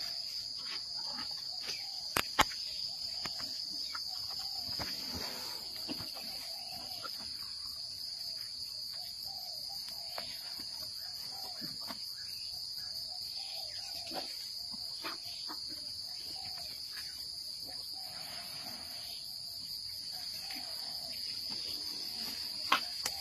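Steady high-pitched drone of jungle insects, with a few sharp cracks and soft crunching from an Asian elephant chewing bamboo; the loudest crack comes a couple of seconds in.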